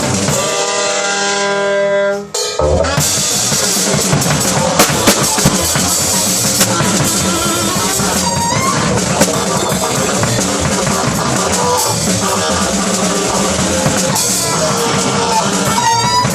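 Live jazz quartet of trumpet, saxophone, double bass and drums playing. A horn holds a long note at the start, the band breaks off briefly just after two seconds, then comes back in full with busy drums and cymbals.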